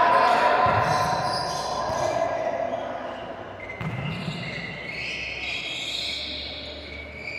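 A volleyball being struck and bouncing on a gym floor, a few separate knocks, with voices and other court noise in the background.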